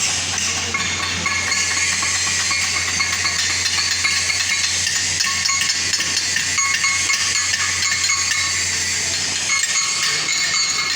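Electric arc welding: a steady, crackling hiss of the arc burning continuously through the whole stretch, with a low electrical hum underneath.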